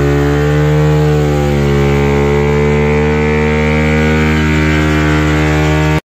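Motorcycle engine running at a steady, slightly wavering speed while riding, which cuts off suddenly at the end.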